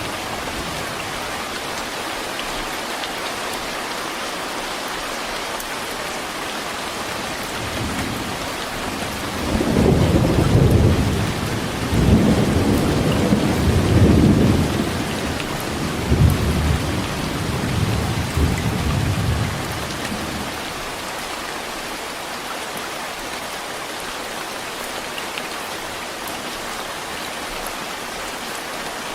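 Heavy rain falling steadily, with a long rolling rumble of thunder that builds about a third of the way in, peaks in several swells and fades out by two-thirds of the way through.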